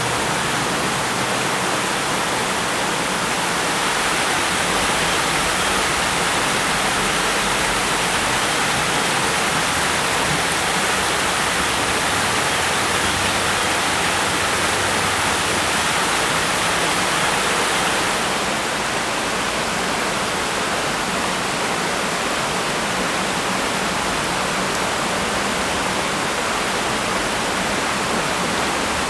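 Waterfall rushing steadily, an even roar of falling water. It turns a little duller about two-thirds of the way through.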